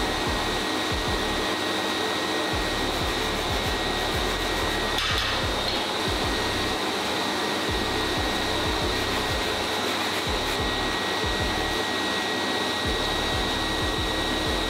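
Workshop vacuum dust extractor running steadily with a high whine, drawing off cork dust as a cork rod grip is filed out.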